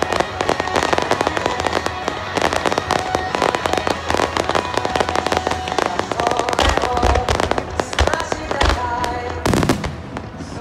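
Aerial fireworks crackling in dense rapid strikes, with a few deeper booms in the second half, over music.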